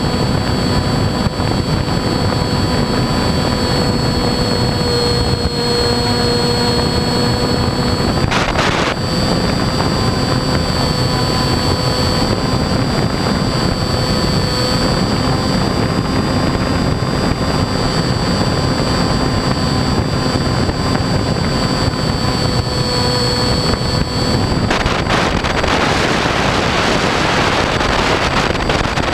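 RC airplane's motor and propeller running at steady cruise with a high, even whine, heard from a camera on the airframe over wind rushing past. The pitch dips briefly about a third of the way in, and near the end the wind rush swells louder.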